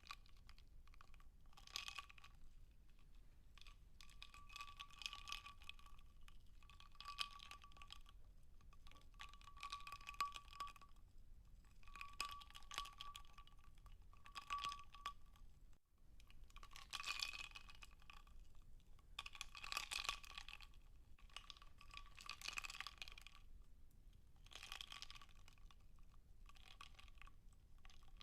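Ice cubes crackling and popping in a glass of water, in faint, irregular clusters of crackles every second or two.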